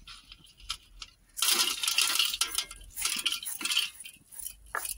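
Deep-fried, batter-coated masala peanuts rattling against each other and the wire mesh of a metal frying strainer as it is shaken and tossed to coat them with chilli powder. A few light ticks come first, then a dense rattle in two surges from about a second and a half in, ending with a single click.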